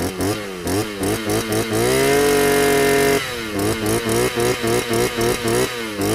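Maxcare MC-430 brush cutter's 42.7 cc two-stroke engine running, its throttle blipped about three times a second. About two seconds in it is held steady at high revs for about a second, then the blipping resumes.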